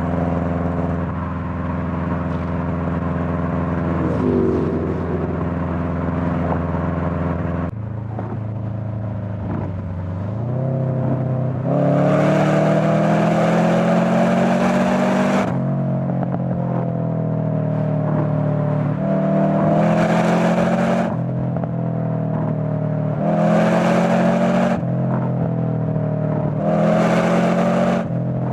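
Subaru Forester SG9's turbocharged flat-four running through a Fujitsubo aftermarket exhaust. It runs steadily for several seconds, then pulls hard four times, the first pull longest. Each pull is louder and fuller, with the engine pitch climbing and then dropping back between pulls.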